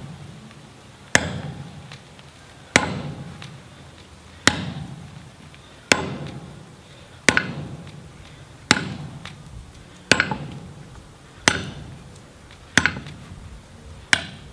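Hammer blows driving a steel drift through the square hardie hole of a striking anvil, about ten evenly paced strikes, roughly one every second and a half, each ringing briefly.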